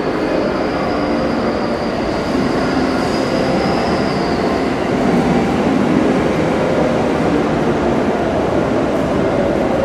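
Limited express electric train standing at a station platform with its onboard equipment running, a steady dense hum and hiss. A thin high whine runs over it for the first four seconds or so.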